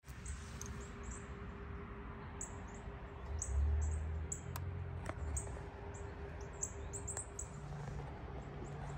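Small birds chirping: a scattered run of short, high, downward-sliding chirps. Underneath are a low rumble that swells briefly near the middle, a faint steady hum and a few light clicks.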